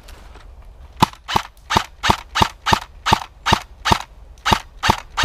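Airsoft gun fired in a rapid string of single shots, about three a second, with about a dozen sharp cracks starting about a second in.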